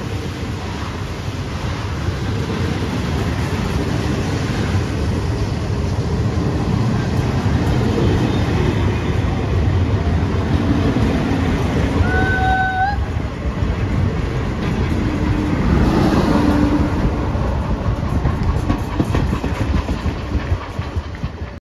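Passenger coaches of a steam-hauled train rolling past at low speed: a steady rumble and rattle of wheels on the rails, growing louder. A short high tone sounds about twelve seconds in, and the sound cuts off suddenly near the end.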